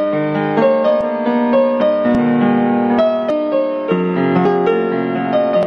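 Piano music: a melody of short notes moving over sustained chords.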